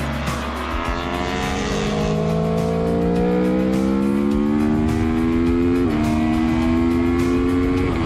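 Aprilia Tuono V4 Factory 1100's V4 engine accelerating hard under load, its pitch rising steadily for about five seconds. It dips briefly with an upshift about six seconds in, climbs again, and shifts once more near the end.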